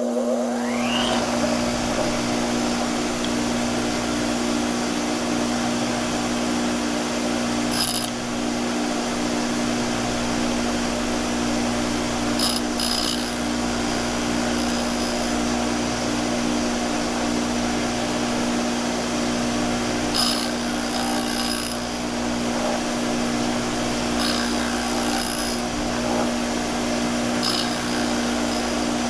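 Bench grinder motor spinning up with a rising whine, then running with a steady hum. About five times, a high-speed steel tool blank is pressed to the wheel, adding short spells of high-pitched grinding, the first about eight seconds in.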